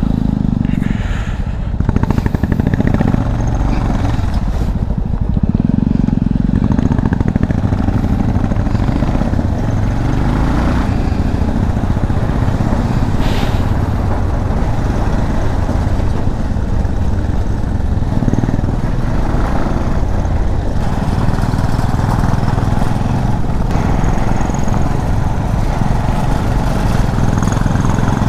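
Motorcycle being ridden along a road, its engine running steadily under a loud low rumble.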